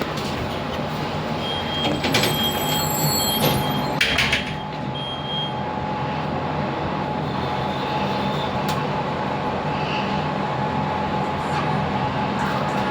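Steady mechanical rumble with a constant hum, with brief high-pitched squeals about two to four seconds in.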